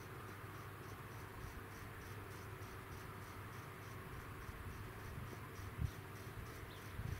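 Insects chirping in the grass, a high pulsing trill of about three or four pulses a second, over a faint low background hum. A brief low thump near the end.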